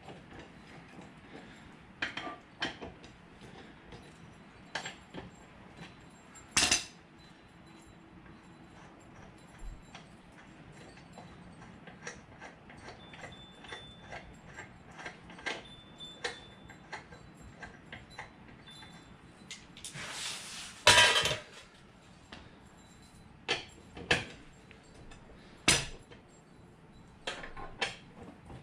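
Scattered metal clinks, clicks and knocks of hand tools and parts being worked on the rear of a jacked-up ATV, with a louder clatter of metal for about a second roughly two-thirds of the way through.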